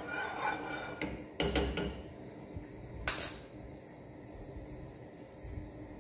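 Metal saucepan clinking and knocking against a gas stove's grate and utensils: a short clatter about a second and a half in and a sharp click about three seconds in, over a low steady background.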